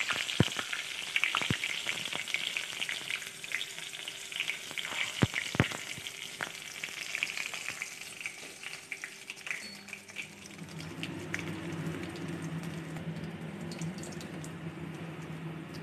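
Dried red chillies sizzling in hot oil in a kadai, with a few sharp clicks in the first six seconds. After about ten seconds the sizzle grows quieter and a low steady hum joins it.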